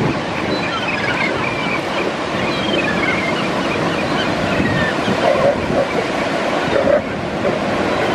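Steady ocean surf washing on the beach under a constant chorus of short high calls from gulls and the elephant seal colony, with a few lower, louder calls in the second half.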